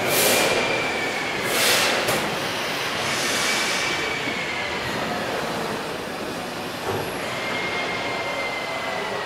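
Steam mill engine's giant rope-grooved flywheel turning: a steady mechanical rushing with recurring swishes as the rim sweeps past, loudest in the first few seconds, and a faint high whine that comes and goes.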